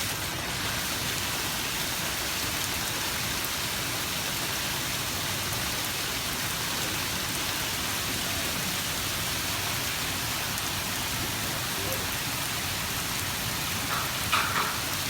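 Steady, heavy rain falling, an even hiss with no let-up. A brief, louder, higher sound cuts in once near the end.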